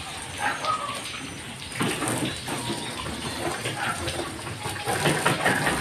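Water from a garden hose splashing onto a pickup truck's wheel and wet concrete, with irregular rubbing and splashing as the truck is scrubbed by hand with a rag.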